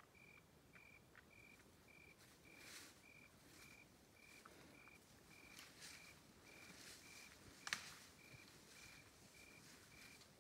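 Faint cricket chirping steadily, short even-pitched chirps at about three and a half a second, over soft rustling in the brush. A single sharp snap stands out about three quarters of the way through.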